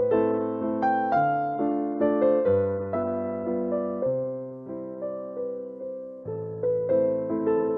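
Background music: a soft electric piano playing slow chords, each struck and left to fade, a new one about every second and a half.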